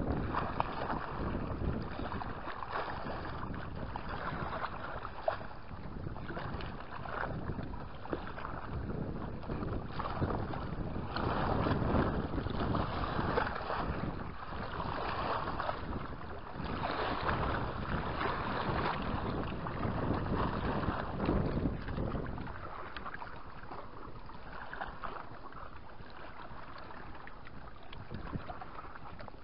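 Wind buffeting the camera's microphone in gusts, with small waves washing against the rocky shore. It swells strongly through the middle and eases off in the last several seconds.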